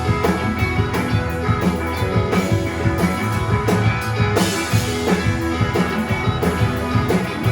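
A rock band of electric guitars, bass and drum kit playing live in an instrumental stretch between sung lines, with a steady beat.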